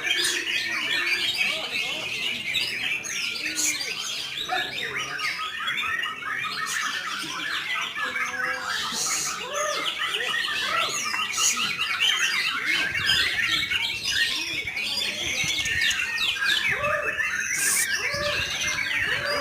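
Dense chorus of many caged white-rumped shamas (murai batu) singing at once, rapid overlapping chirps, whistles and chatter. A low rumble joins about two-thirds of the way in.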